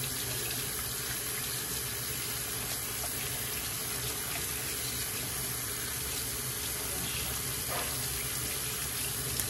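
Kitchen faucet running steadily into a stainless steel sink, the stream splashing over a fish held under it to be rinsed.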